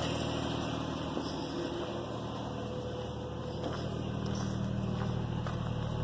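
2003 GMC Envoy's 4.2-litre six-cylinder engine idling steadily and smoothly, with no more miss now that a bad coil pack has been replaced.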